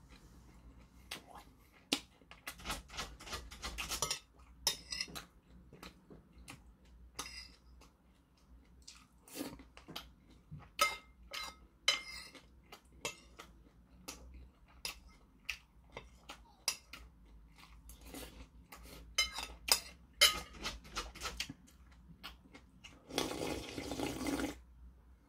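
A metal spoon clinks and scrapes against porcelain bowls in many short, sharp clicks. Near the end comes a longer slurping sound as a small bowl is drunk from.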